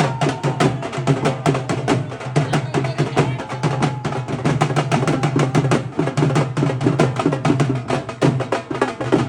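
Music driven by fast, steady drumming, many beats a second.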